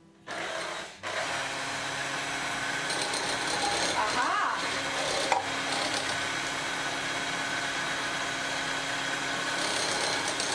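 Vintage Sunbeam Mixmaster M12 stand mixer running with its twin beaters in a bowl, beating cream cheese. It starts, stops briefly about a second in, then runs steadily, with a sharp click a little after five seconds.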